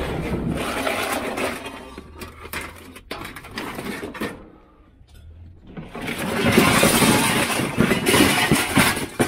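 Scrap metal clattering and scraping as it is handled and set onto a steel platform scale. There is a dense run of knocks at first, a short lull, then a louder stretch of rattling and scraping over the last three seconds.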